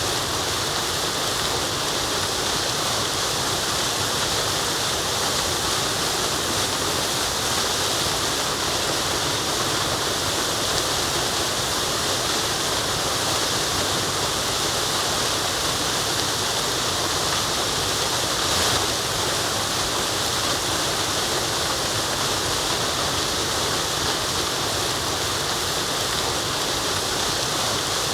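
Waterfall and running stream water rushing steadily, a dense even hiss.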